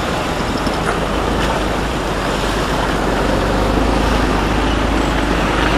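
Austin Champ 4x4's engine running steadily, heard from on board the open vehicle.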